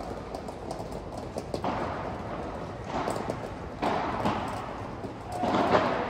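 Padel balls and paddles knocking and bouncing, with footsteps on the artificial-turf court, scattered short thuds in a large echoing covered hall. Several brief shuffling surges of noise come through, the loudest near the end.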